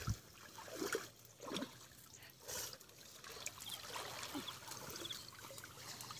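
Water trickling and dribbling, with a few small splashes, as a bamboo-rimmed hand scoop net is worked through shallow water and lifted out dripping.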